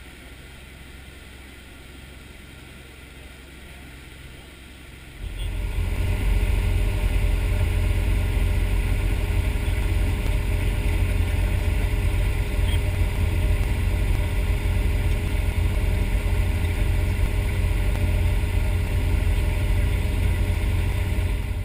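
Dive boat's engine running steadily under way, a low rumble with a steady hum, growing much louder about five seconds in.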